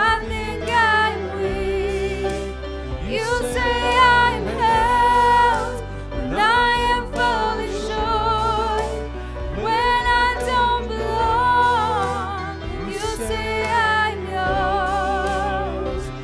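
Contemporary worship song: a singer holds long notes with vibrato in flowing phrases over a steady instrumental accompaniment.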